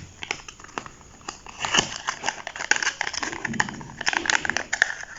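Plastic packaging crinkling and rustling, with scattered small clicks and handling noises, as a charging cable is taken out of its pack; busier after about a second and a half.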